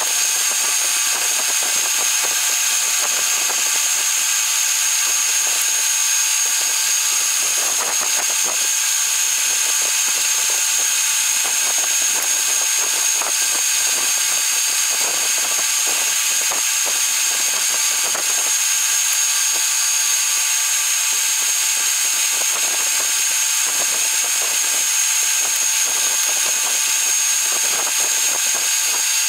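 Lodge & Shipley Model X metal lathe running under a steady turning cut, its tool reducing bolt stock to half-inch diameter. A steady high whine is heard throughout, with faint scattered ticks from the cut.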